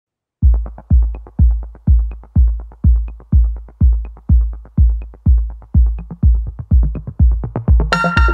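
Electronic intro music with a heavy kick drum beating about twice a second, starting about half a second in; a bright synthesizer chord joins near the end.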